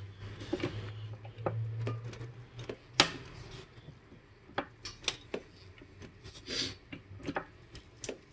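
Hydraulic floor jack being pumped to lift a car, with scattered light metallic clicks and knocks from the handle strokes, the sharpest about three seconds in.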